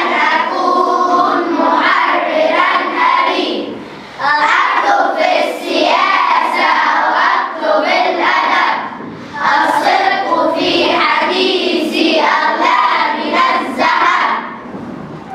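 A class of young schoolchildren singing an Arabic poem together in unison, in phrases broken by short pauses.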